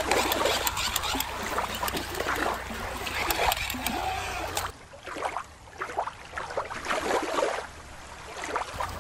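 Shallow water lapping and splashing against rock, with a low wind rumble on the microphone. About halfway through this gives way suddenly to a different, quieter background with scattered short sounds.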